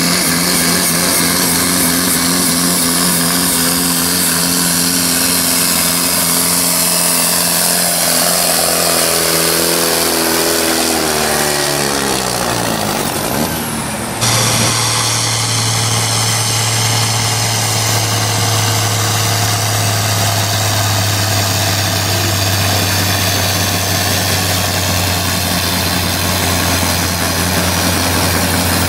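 Diesel pulling-tractor engine at full throttle dragging the sled, its revs falling away over several seconds until it slows almost to a stop about 13 seconds in. Then a different pulling tractor's engine, a modified Ford, runs steadily at high revs.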